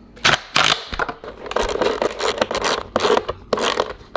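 A run of irregular sharp clicks, scrapes and rattles from tools and metal parts being handled.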